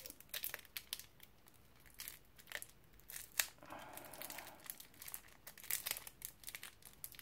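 Plastic wrapping on a Staedtler art eraser crinkling and crackling in faint, irregular bursts as it is peeled off by hand.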